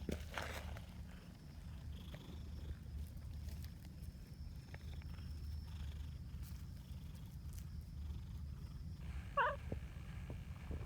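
Calico cat purring, a low rumble that swells and eases in waves, with one short wavering meow about nine seconds in.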